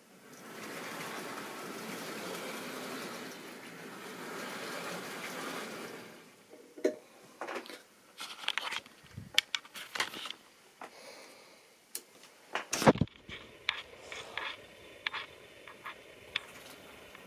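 A steady rushing noise for about six seconds, then a run of sharp clicks and knocks, the loudest about thirteen seconds in, as the camera is handled and moved.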